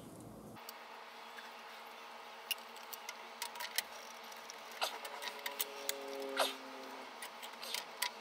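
Faint clicks and light knocks of a PVC union fitting being handled and pushed onto a PVC pipe, with a short rising squeak about six seconds in as the fitting is twisted home.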